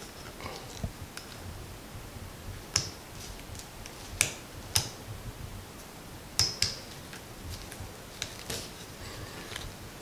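Irregular small, sharp clicks and rustles of stiff electrical wires and a plastic twist-on wire nut being handled and twisted onto the neutral wires, with a few louder clicks in the middle.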